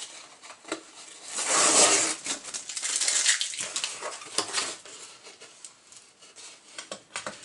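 Cardboard comic-book mailer handled and its taped flap pried open by hand: bursts of cardboard rustling and scraping with a few sharp clicks, quieter toward the end.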